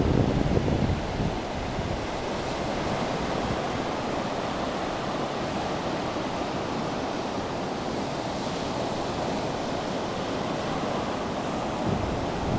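Ocean surf: a steady rush of breaking waves. Wind buffets the microphone in the first second and again near the end.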